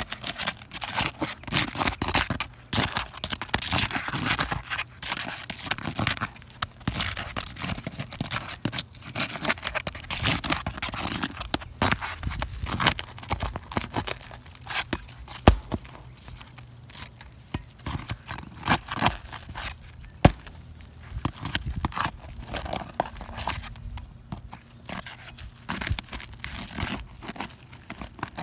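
3-tab asphalt shingles being pulled loose from a roof: irregular scraping, crackling and tearing as the tab is broken free, with a few sharp knocks.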